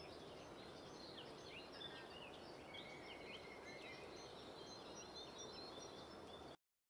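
Faint birdsong, many short chirps and whistles, over a steady low background noise; everything cuts off abruptly near the end.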